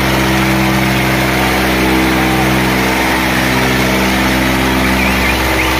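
Eicher tractor's diesel engine running hard at a steady, unchanging pitch under full load, pulling in a tractor tug-of-war with its front wheels lifted off the ground.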